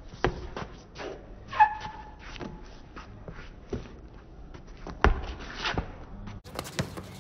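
Basketball dribbled on concrete: separate bounces at an uneven pace, roughly one a second, with shoes scuffing on the pavement. A brief high squeak comes about a second and a half in.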